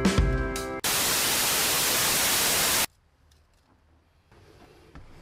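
Guitar music ends, then a burst of static hiss, even and flat, lasts about two seconds and cuts off abruptly, followed by a few faint clicks.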